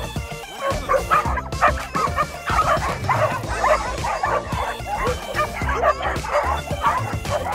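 Background music, with dogs yipping and whining over it in many short cries from about a second in.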